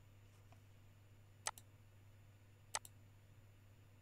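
Two computer mouse clicks, each a sharp press followed quickly by a softer release, over a faint steady low hum.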